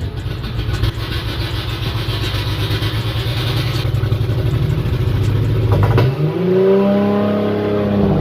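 Nissan 240SX (S14) engine idling, then about six seconds in the revs climb by themselves and hang high. This is the car's idle fault: the engine tries to go to wide open throttle until the ECU cuts spark.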